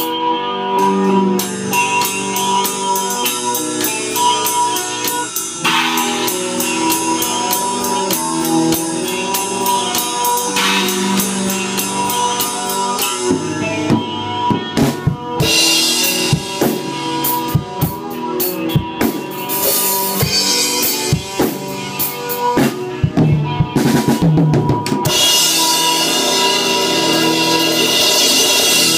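A rock band plays a song on drum kit and electric guitar. About halfway through the music thins to mostly drums playing scattered hits and fills. Near the end the full band comes back in with crashing cymbals.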